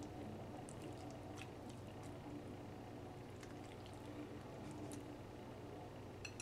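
Faint wet sounds of chopsticks stirring instant ramen noodles and toppings in broth in a ceramic bowl, with scattered light clicks, over a steady low hum. A single sharp click right at the end.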